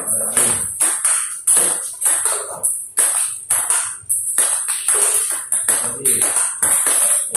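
Table-tennis rally: a plastic ball clicking against paddles and the table in a steady rhythm, about three hits a second.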